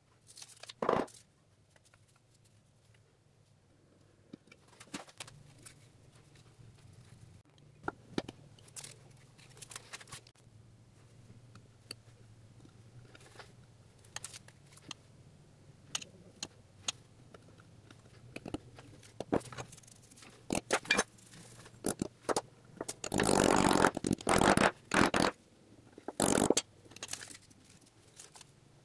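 Steel parts handled on a workbench: scattered light clicks and taps as coated steel plates and whole ball bearings are set into a steel forge-welding canister, then louder scraping and rubbing near the end.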